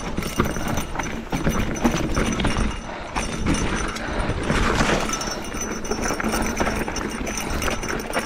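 Esker Japhy single-speed mountain bike riding over a rough dirt and rock trail: a steady noise of tyres on the ground, with a heavy low rumble and many small knocks and rattles as the bike hits rocks and roots.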